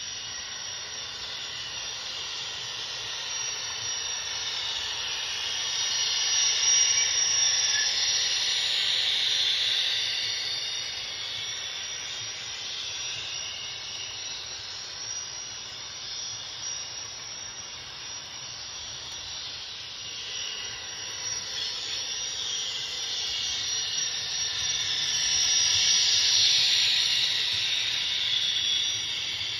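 Sound system of a ScaleTrains Union Pacific 'Big Blow' gas turbine model locomotive playing a steady jet-like turbine hiss as the train runs. It grows louder about a quarter of the way in and again near the end.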